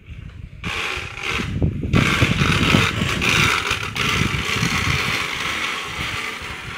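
Loud engine noise from a vehicle on the road, starting about half a second in and running steadily.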